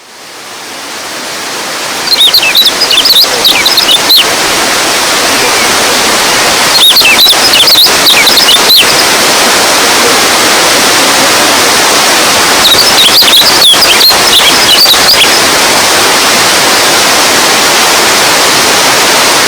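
Running water rushing steadily, fading in over the first two seconds. Three separate bursts of quick, high chirping rise above it.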